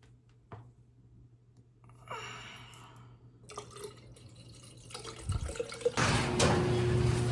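Running water, as from a tap, after a few soft clicks. It starts about two seconds in and gets much louder near the end.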